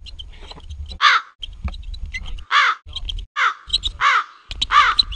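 Crows cawing: five loud caws about a second apart, with small clicks between them over a low rumble that cuts in and out.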